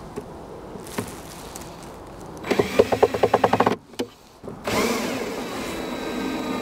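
Cordless drill-driver driving small screws through a metal corner bracket into a wooden box. About two and a half seconds in there is a fast rattling burst lasting about a second, then after a short pause the motor runs steadily, driving the next screw.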